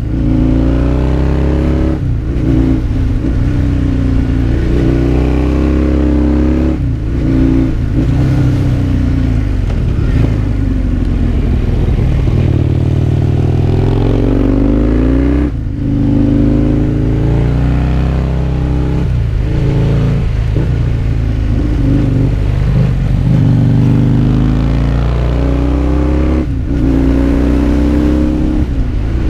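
Husqvarna Nuda 900's parallel-twin engine heard from on the bike while riding, pulling and backing off repeatedly: its pitch climbs with the revs and drops sharply about five times. Wind noise runs under the engine.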